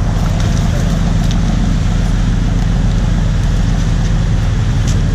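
Charter fishing boat's engines running steadily under way, a constant low drone with the rush of wind and churning wake water over it. A couple of light clicks, about a second in and near the end.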